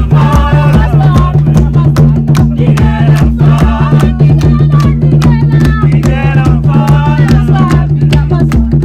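Group singing and hand-clapping over fast, steady beats on a tall carved wooden drum: a dance song.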